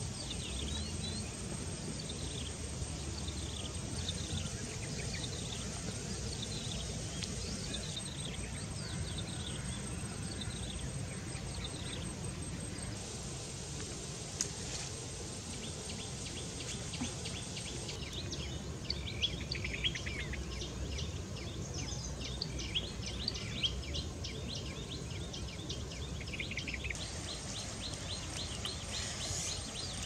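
Outdoor ambience: a bird calling in short, repeated falling chirps about once a second, then a fast insect-like ticking trill from about two-thirds of the way in, over a steady low rumble.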